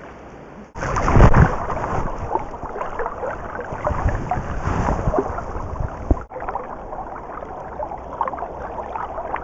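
River water rushing and lapping close to the microphone, with wind buffeting it. The noise jumps suddenly louder under a second in and is loudest, with heavy low rumble, a moment after.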